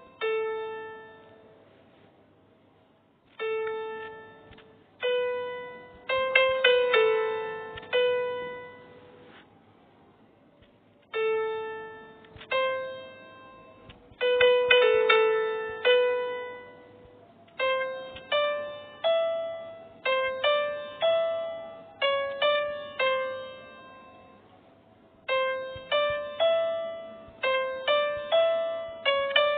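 Slow solo instrumental melody of single notes, each struck sharply and left to ring out and fade, played in short phrases separated by pauses of a second or two.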